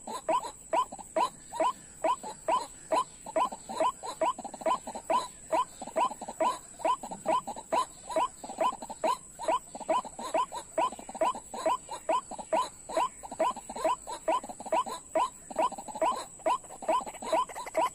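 White-breasted waterhen call, a rapid, monotonous series of short 'kwak' notes, about three to four a second, each falling slightly in pitch. It is very even and runs on without a break, typical of a lure recording played through a small speaker, with a thin steady high whine behind it.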